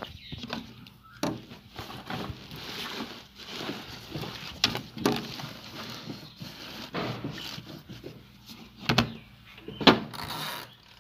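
Cloth rustling and knocking against plastic as a cloth bundle is pushed down into the spin-dryer tub of an LG twin-tub washing machine. Near the end come two louder knocks about a second apart as the spin tub's lids are shut.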